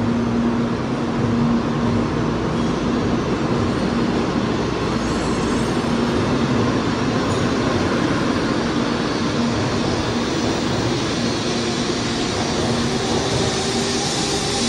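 N700A Shinkansen train running past the platform as it pulls out and picks up speed: a steady hum of motors and wheels on rail that grows brighter and hissier near the end.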